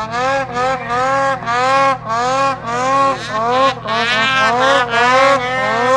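Ski-Doo Summit 850 two-stroke snowmobile engine revving hard in quick repeated throttle bursts, its pitch rising and falling about twice a second as the rider works the sled up a steep slope.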